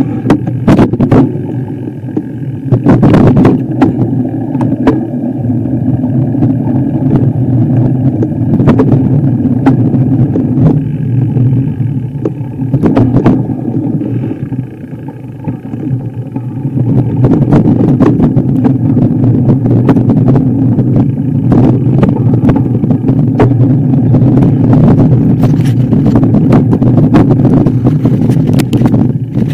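A motor vehicle engine running under load. It eases off about halfway through and then picks up again, with sharp knocks and clatters scattered throughout.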